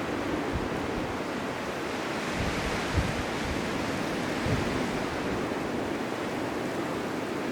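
Blizzard wind blowing as a steady rushing noise, with a few low thumps of gusts buffeting the microphone, the sharpest about three seconds in.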